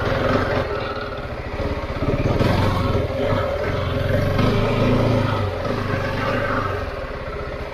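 Husqvarna 701's single-cylinder four-stroke engine running under way at low speed, its note rising and easing with the throttle.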